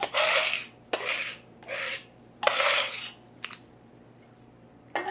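Knife cutting through a boneless beef chuck roast on a cutting board, trimming off fat: four drawn strokes in the first three seconds, then a couple of light clicks.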